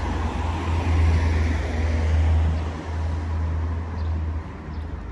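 Street traffic: a car passing on the road, its engine and tyre noise over a heavy low rumble, fading about four and a half seconds in.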